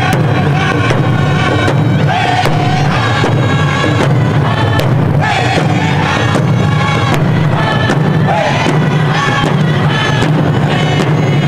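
A group of men and women singing loudly together in unison over a steady, even beat of hand-held frame drums struck with beaters.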